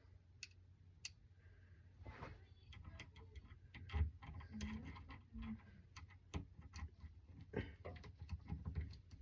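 Faint, irregular small clicks and light clatter of screwdriver bits being handled and sorted, in search of a head that fits small screws; the clicks come thicker from about two seconds in.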